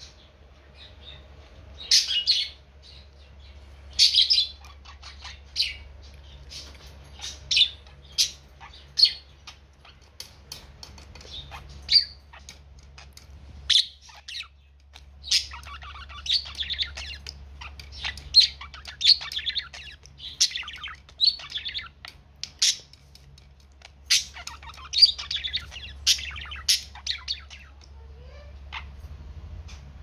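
Budgerigar chirping in short sharp calls, then about halfway through breaking into longer runs of quick warbling chatter: the chatter of a contented budgie.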